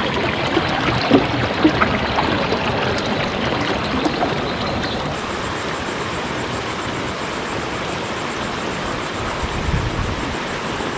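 Creek water gushing over a small dam: a steady rushing splash.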